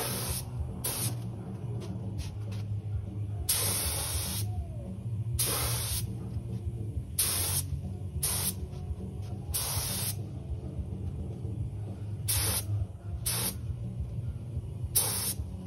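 Compressed-air spray gun spraying epoxy primer in short passes: about ten bursts of hiss of varying length, each starting and stopping sharply with the trigger, over a steady low hum.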